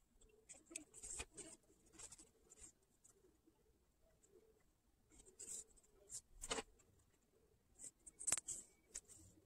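Hand-sewing: a needle and thread drawn through cotton fabric, with the cloth rustling in the fingers as a ladder stitch attaches a stuffed doll's tail. Faint, scattered scratches and rustles, the sharpest about six and a half and eight seconds in.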